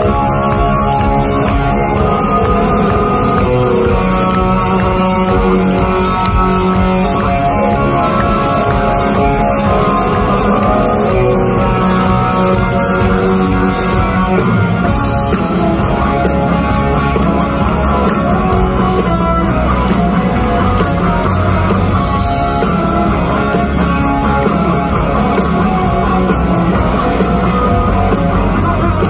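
A live rock band playing loudly through an arena PA, heard from the crowd on a phone: electric guitar and bass guitar over a steady drum beat.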